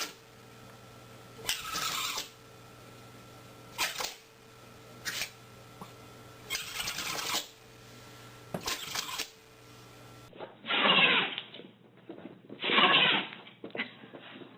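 A pet sneezing over and over, a short burst every second or two. About ten seconds in, a different animal sneezes twice, louder.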